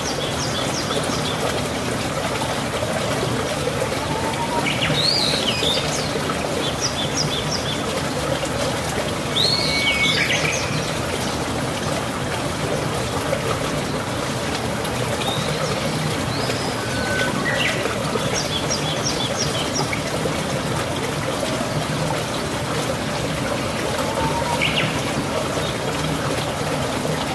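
A small bird chirps and calls in short bursts every few seconds, some calls quick runs of three or four notes. Under it runs a steady hiss like trickling water.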